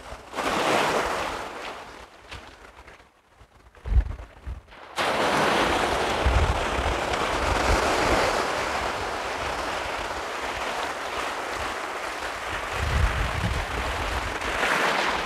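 Small sea waves washing in over the sand and shingle of the shallows, with wind buffeting the microphone in low rumbles. The wash surges, dies down for a few seconds, then rises sharply about five seconds in to a steady hiss.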